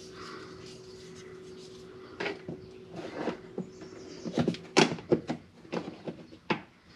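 Hard plastic clicks and knocks as the Polaris RZR XP4 Sport's dash trim pieces are handled and tugged at by hand. A few come about two seconds in, then a quick run of them in the second half. A faint steady hum lies underneath and stops about halfway through.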